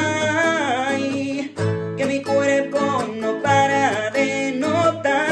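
A man singing with bending, held notes over a strummed acoustic guitar, with the voice dropping out briefly a couple of times between phrases.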